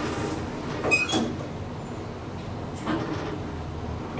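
KONE hydraulic elevator: a sharp metallic clunk with a short ringing about a second in, then a softer knock near three seconds, over a low steady hum from the lift.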